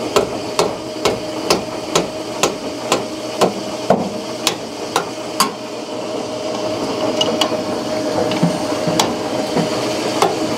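Sharp metal clicks from a wrench working a trunnion lock nut, evenly spaced at about two a second, then thinning out after about five seconds. A running laundry machine hums steadily underneath.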